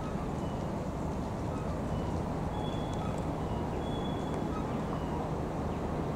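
Steady city background noise at night: a constant hum of distant traffic, with a few faint, short high tones near the middle.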